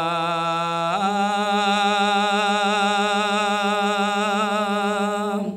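A man's solo voice chanting a line of an Arabic qasida unaccompanied, holding one long wavering note that steps up in pitch about a second in. The note breaks off suddenly near the end.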